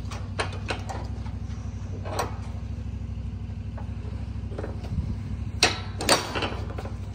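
Low steady motor hum with a fast, even pulse, and two sharp knocks about half a second apart near the end.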